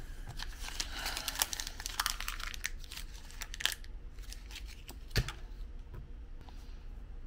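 Crinkling and crackling from hands handling something on a desk, dense for the first few seconds, then one sharp knock about five seconds in.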